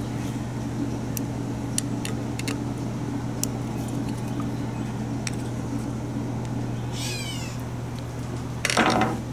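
Screwdriver turning and seating the small screws of an 8 HP Briggs & Stratton carburetor: faint, scattered metallic ticks over a steady low hum. About seven seconds in there is a short sweeping chirp, and near the end a louder short call.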